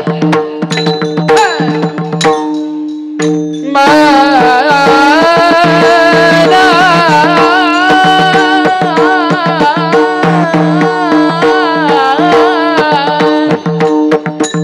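Marathi Warkari devotional bhajan: a man's long, wavering, ornamented singing over a steady drone, with hand-drum strokes and small hand cymbals (tal) clashing in rhythm. The singing comes in strongly about four seconds in, after a brief quieter drop.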